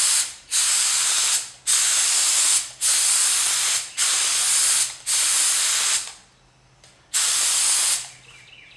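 Central Pneumatic (Harbor Freight) purple HVLP gravity-feed spray gun hissing as it sprays thick water-based alkyd paint. It comes in a run of bursts about a second long, one per pass as the trigger is pulled and released, with a longer pause near the end before one last burst.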